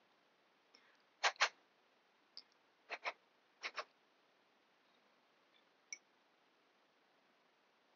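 Hand-carving tools working an avocado seed, giving three quick pairs of sharp clicks and a few fainter ticks against a quiet background.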